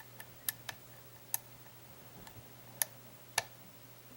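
Lock pick and tension wrench working the pins of a pin-tumbler lock: about seven sharp, irregularly spaced metallic clicks as pins are lifted and set while the lock is worked back toward a false set, with a faint steady hum underneath.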